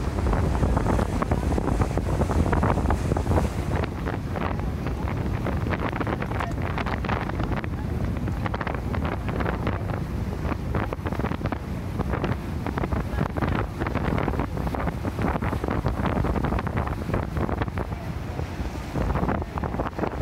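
Wind buffeting a phone's microphone on the open deck of a tour boat underway, over a steady low rumble of the boat and the water.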